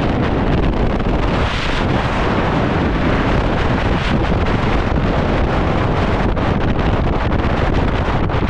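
Wind buffeting a GoPro's microphone at speed on a snowboard run: a loud, steady rush, mixed with the board scraping over snow.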